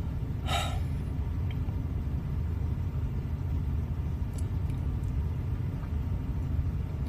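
Steady low rumble, with one short breathy noise about half a second in.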